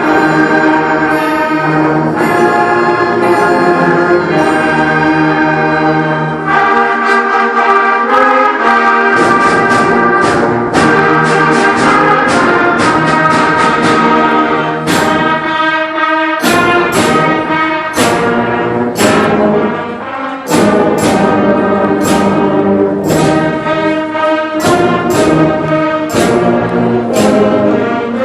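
A school concert band playing, with brass leading in sustained chords. From about nine seconds in, a steady beat of percussion strikes joins.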